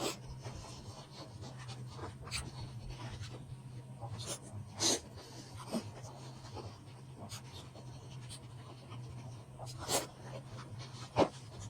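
Close-up eating sounds of someone chewing momos (dumplings): scattered wet mouth clicks and smacks, the loudest about five seconds in and near the end, over a low steady hum.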